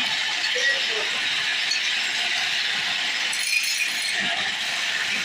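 Wood lathe running with a turning tool cutting into the spinning wood: a steady scraping hiss.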